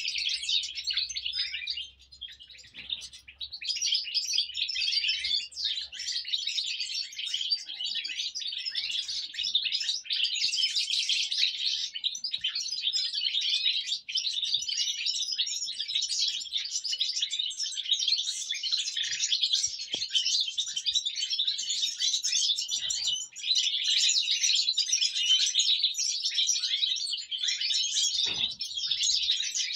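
A flock of European goldfinches chirping and twittering, with many calls overlapping throughout and a brief lull about two seconds in.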